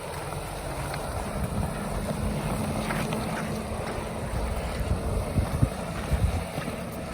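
Mahindra Thar's petrol engine running at low speed over rough ground, with wind noise on the microphone. A few knocks come in the second half.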